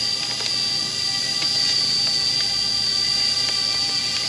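Parrot Bebop 2 quadcopter drone's motors and propellers whining steadily in flight: a high, even whine.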